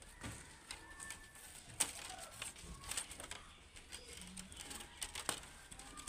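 Scattered light clicks and taps of bamboo strips being handled and woven into a basket, with two sharper clicks standing out.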